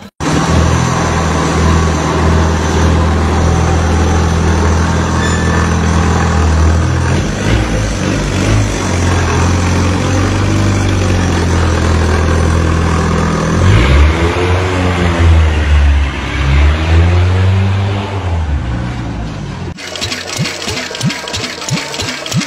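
Motorcycle engines in several short clips: a loud steady engine note, then an engine revved up and down several times, then after a cut a different engine running with a rapid, even ticking beat.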